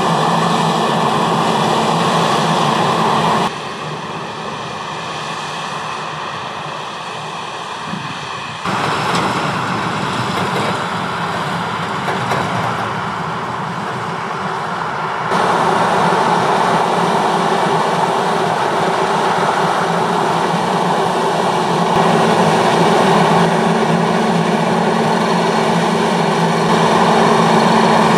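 New Holland CR 8.90 Revelation combine harvester running while harvesting wheat: a steady engine drone mixed with the whir of its machinery. The level drops and rises suddenly a few times.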